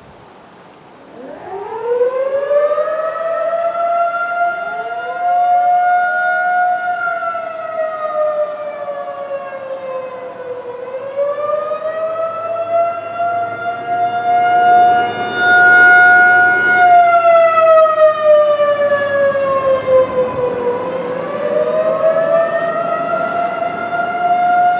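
Federal Signal 2001-SRN electromechanical tornado siren winding up about a second in, then sounding a wail: its tone slowly falls and rises again twice. It is a test activation after the siren's controls were restored.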